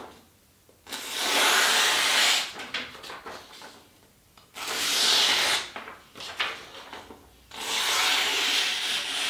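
A sharpened machete blade slicing down through a sheet of printer paper three times, each pass a drawn-out papery rasp of about a second and a half. This is a paper-cut test of the new edge, which catches in places on leftover burr.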